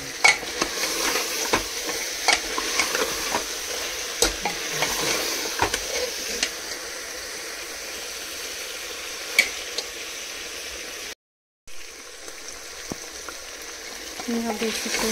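Mutton sizzling as it fries in oil and spices in a pot, with a spoon knocking and scraping against the pot now and then as it is stirred. The meat is being slowly browned until the oil separates. The sound briefly cuts out about eleven seconds in.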